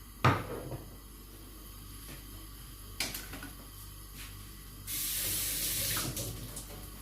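A sharp knock, then a click, then about a second of running water.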